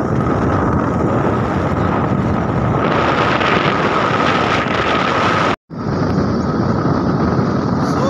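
Scooter ride: heavy wind buffeting the microphone over the scooter's running motor, with a thin steady whine through it. The sound drops out for a split second a little after halfway, then resumes.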